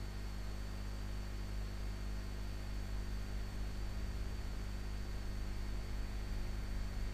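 Steady electrical mains hum and hiss from the recording microphone, with a faint, steady high-pitched whine and no other sound.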